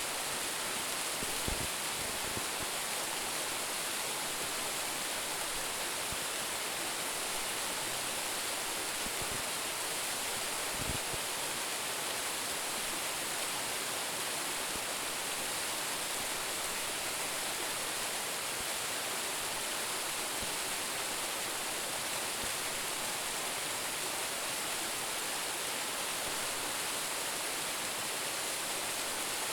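Roumon Falls, a waterfall of about ten metres, falling with a steady, even rush of water. There are two faint low thumps, about a second and a half in and about eleven seconds in.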